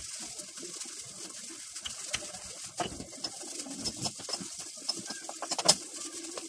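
Hands pressing and patting maize-flour dough on a kitchen counter, with soft taps and one sharp knock about five and a half seconds in. A pigeon's low, wavering cooing goes on behind.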